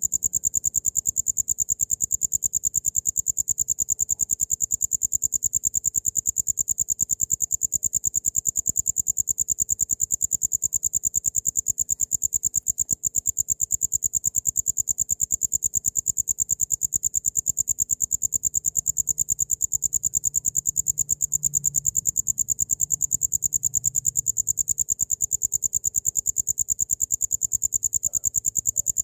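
Cricket (jangkrik) trilling without a break: a high-pitched, very rapid and even pulsing.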